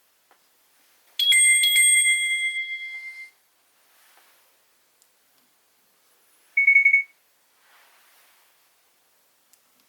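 Nokia 7500 Prism mobile phone playing a bell-like alert tone through its small speaker: a high chime that rings out and fades over about two seconds, then, a few seconds later, one brief high fluttering beep.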